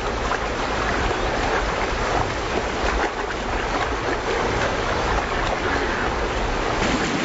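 Steady rushing and splashing of water.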